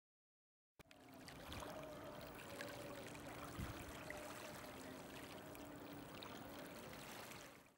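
Faint trickling, lapping water of a shallow lakeshore, with a few small splashes and a faint steady low hum underneath; it fades out near the end.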